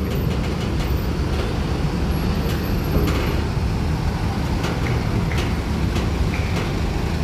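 Medium-size coach's diesel engine running as it drives slowly onto a ferry's loading ramp: a steady low rumble with a few faint knocks.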